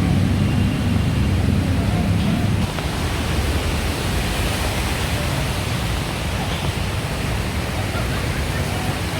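Traffic on a rain-soaked, flooded city road: a vehicle engine rumbling close by, cutting out about two and a half seconds in, over a steady rushing wash of wet traffic and running water.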